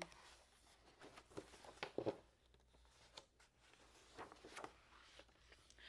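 Faint paper rustles and soft handling noises as the page of an oversized picture book is lifted and turned, with a few brief crinkles, the clearest about two seconds in.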